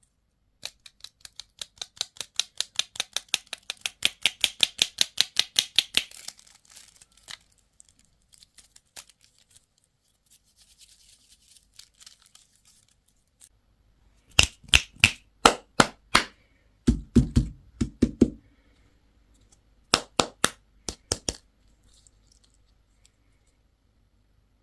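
Sharp clicks and taps from toy and candy packaging being handled and opened. A fast even run of about five clicks a second lasts several seconds, then a few scattered clicks, and later two short clusters of louder taps with some duller thumps among them.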